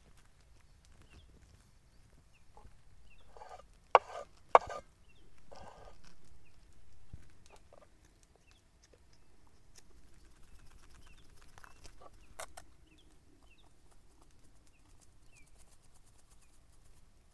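Birds calling now and then in short chirps, with two sharp knocks about four seconds in, the loudest sounds, among a few other short noises.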